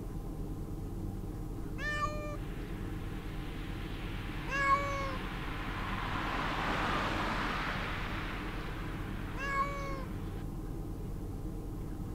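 Three short cat meows, about two seconds in, around four and a half seconds and around nine and a half seconds, each dipping slightly in pitch at its end. A steady low hum and a soft hiss run underneath.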